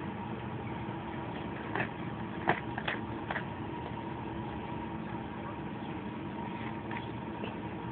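A cat nosing into a plastic zip bag of food, giving a few short crinkles and clicks between about two and three and a half seconds in, over a steady mechanical hum.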